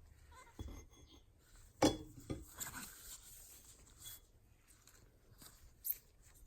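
Light handling sounds at a workbench: a few scattered knocks and clicks, the loudest about two seconds in, with some faint rubbing between them.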